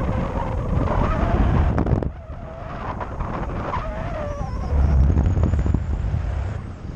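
Strong wind buffeting the microphone of a harness-mounted camera in paraglider flight: a heavy low rumble that eases briefly a little after two seconds and swells again about five seconds in, with a thin wavering whistle over it.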